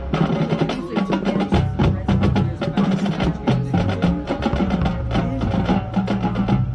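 Marching band playing: many quick percussion hits, wood-block-like and drum strokes, over held low brass notes.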